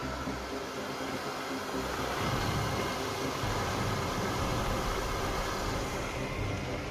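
Small electric water pump running steadily, a constant motor hum.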